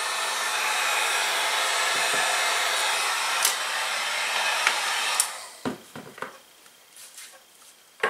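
Handheld heat gun running steadily, blowing hot air to melt and seal a seam in thin plastic; it cuts off about five seconds in. A few light knocks follow.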